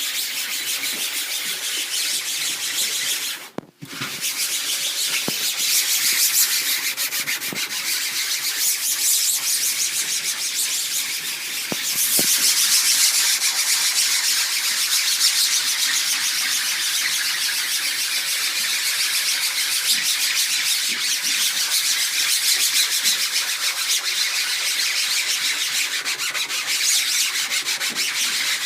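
Scrubby side of a sponge rubbed hard back and forth over a screen-printing mesh screen, working in an oily ink-removing cleaner. The scratchy scrubbing runs continuously, with a brief pause about four seconds in.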